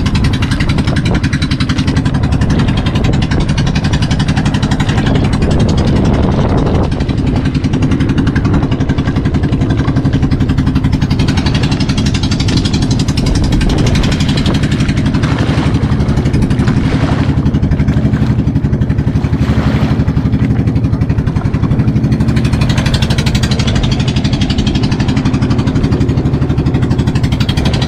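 Motorized outrigger boat's engine running steadily under way, with water splashing against the hull and outrigger floats.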